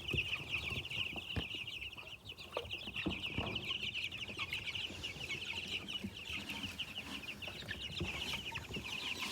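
A brooder of 17-day-old meat-bird chicks peeping continuously, a dense chorus of rapid high peeps, with scattered light knocks as they peck at feed and water.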